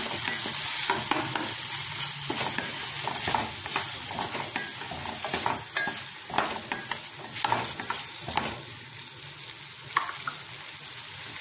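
Shallots, tomato and curry leaves frying in oil in a stainless steel kadai, a steady sizzle, while a spatula stirs in ginger-garlic paste with irregular scrapes and taps against the pan.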